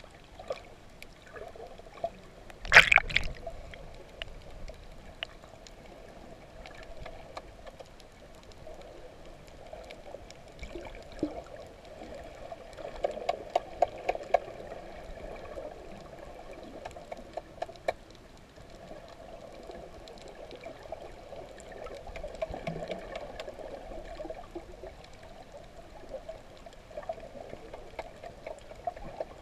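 Underwater sound picked up by a snorkeler's camera held beneath the surface: a steady muffled wash of water with faint scattered clicks and crackles. There is one loud sudden burst about three seconds in, and a few sharper ticks later on.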